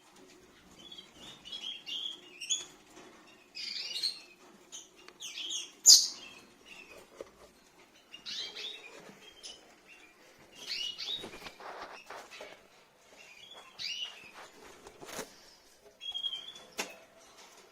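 Rosy-faced lovebirds chirping in short, scattered bursts, with scratchy rustling and a few sharp clicks between the calls.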